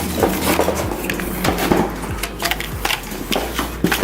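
Hard plastic vacuum-cleaner parts knocking and clicking against each other as they are handled, a run of short clatters.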